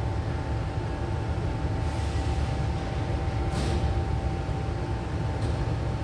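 Large diesel engine idling steadily, a low rumble with a constant whine over it, and a short hiss about three and a half seconds in.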